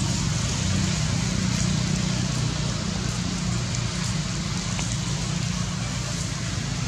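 Steady low rumble with an even hiss of outdoor background noise; no monkey call stands out.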